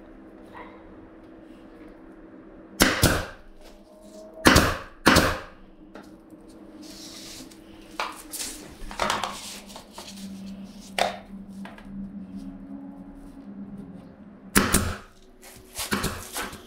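Pneumatic brad nailer firing into wooden trim strips: a sharp shot about three seconds in, two more close together around five seconds, and two more near the end. Lighter knocks of the wood strips being handled come in between.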